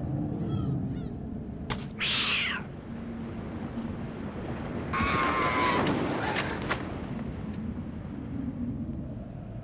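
Cartoon bird calls: a few small chirps, then a squawk falling in pitch about two seconds in, and a longer, harsh honking call from about five seconds in. Under them runs a low, steady rushing noise.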